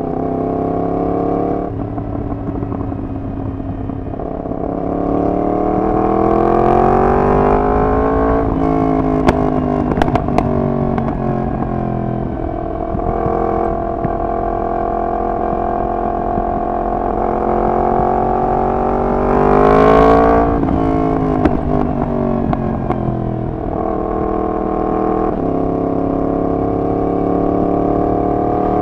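Yamaha MT-10's crossplane inline-four through a decat full exhaust system, riding under way. The revs climb steadily for several seconds and hold at a steady cruise, with a few sharp clicks about a third of the way in. They climb again to a peak and drop about two-thirds of the way through, then settle lower.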